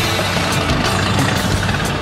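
Background music with a steady beat of about two strokes a second.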